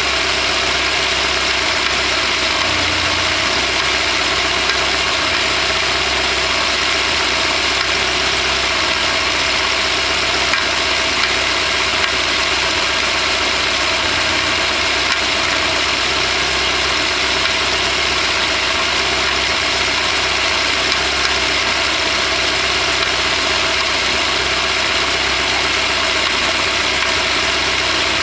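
Engine idling steadily with a knock, which appeared after the piston group and exhaust valves were replaced; the owner has had the oil pan off and found everything below bolted tight, so the cause is unknown.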